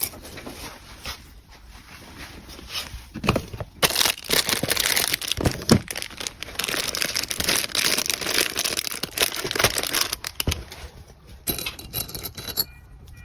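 Packaging crinkling and rustling as small items are handled and packed, quiet at first, then steady, dense crinkling with many small clicks from about four seconds in to about ten, and a short burst again near the end.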